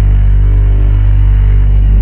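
A loud, steady low drone of several held deep tones, like a dark ambient music bed. It holds unchanged throughout, with no rain patter or thunder crack standing out.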